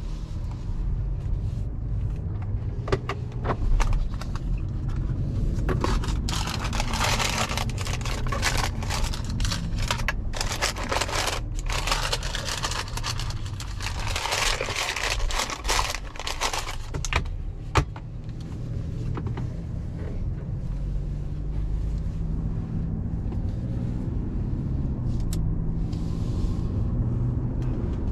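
Cabin noise of a 2022 Mercedes-Benz C-Class with a 2.0-litre four-cylinder, driving slowly: a steady low rumble of engine and tyres. For about ten seconds in the middle, a run of close clicks, scrapes and rustles sits over it.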